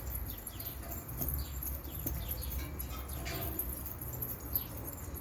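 Birds chirping, short high calls scattered irregularly, over a steady low rumble.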